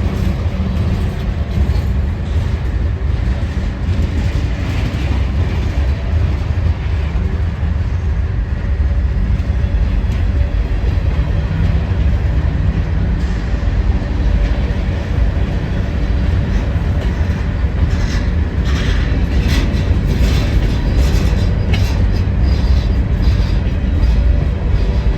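Freight train cars, flat cars among them, rolling slowly past with a steady low rumble and wheel clatter, and a run of sharper clanks and clicks near the end.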